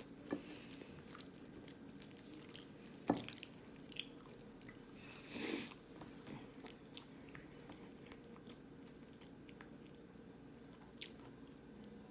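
A person chewing food close to the microphone: faint, scattered mouth clicks, with a sharper click about three seconds in and a short noisy burst about five and a half seconds in.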